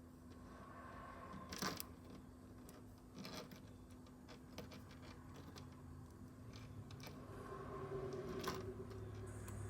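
Faint clicks and small clinks of a silver-beaded rhinestone necklace being handled and looked over, with a few louder taps spread through.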